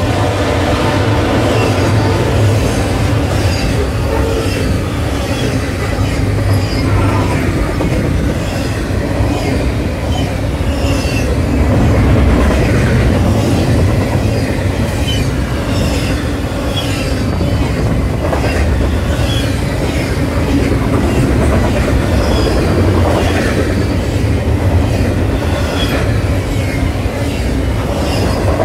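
Canadian National double-stack intermodal freight train's container well cars rolling steadily past: a continuous heavy rumble and clatter of wheels over the rails, with many brief wheel squeals.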